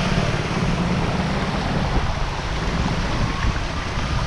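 Wind rumbling on the microphone over the steady hiss and splash of bicycle tyres running through shallow floodwater.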